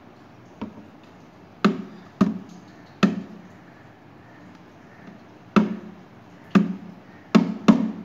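A series of sharp, hard knocks at uneven intervals: a faint one about half a second in, then seven loud ones, two of them close together near the end. Each knock has a brief ringing tail.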